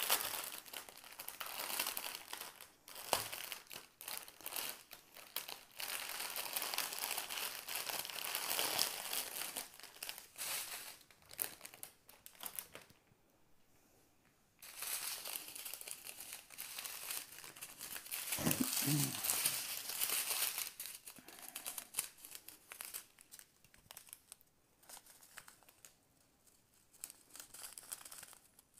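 Thin plastic bags crinkling and rustling as a bundle of small bagged diamond-painting drills is handled, pulled out of its clear outer bag and unfolded into strips. The crinkling comes in bouts, with a pause about halfway through.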